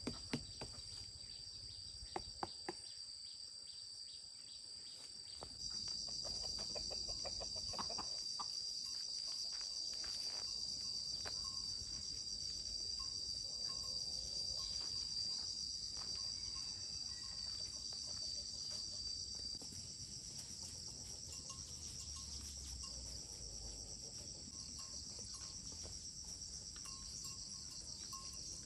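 Steady high-pitched chorus of insects shrilling, growing louder about six seconds in, with a few faint clicks near the start.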